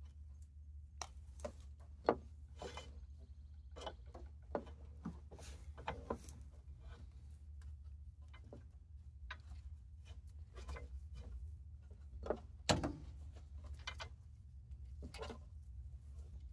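Synthetic winch rope being pulled and worked loose by hand from a winch drum where it had bound up: irregular rustling, rubbing and small clicks, with two sharper knocks about two seconds in and near thirteen seconds in, over a steady low hum.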